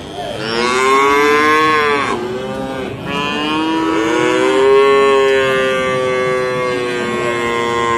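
Calves bawling: a call of about two seconds, then a longer, steadily held call lasting about five seconds.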